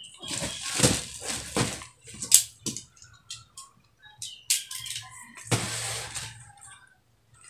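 Plastic-wrapped parcel rustling and bumping as it is handled and set down, with a few small clicks partway through and another plastic rustle near the end.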